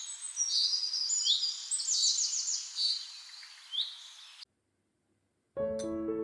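Songbirds chirping and singing: many short high whistled notes, some sweeping up or down, over a light background hiss. They cut off abruptly about four and a half seconds in, and after a second of silence piano music begins near the end.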